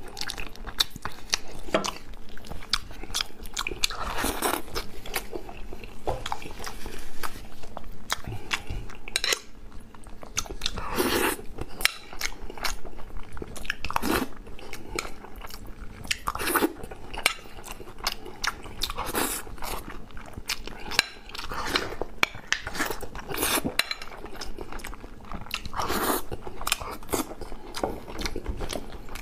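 A person biting and chewing food close to the microphone, a louder bite every two or three seconds between many small chewing clicks.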